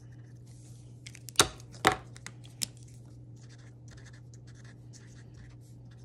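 Mr. Sketch felt-tip markers scratching in short strokes on paper, with two sharp plastic clicks about a second and a half in and a smaller one a little later, as a marker cap is pulled off and snapped on while switching colours.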